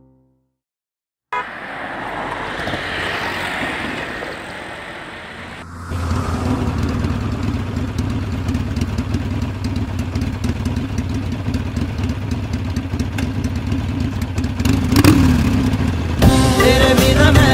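Motorcycle engine running steadily, after a few seconds of traffic noise. Music comes back in near the end.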